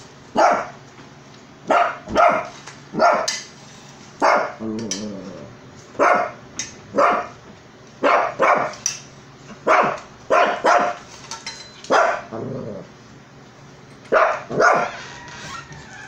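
Shih Tzu barking at a vacuum cleaner: short barks in irregular runs, often two or three close together, with a pause of about two seconds before a final quick run near the end.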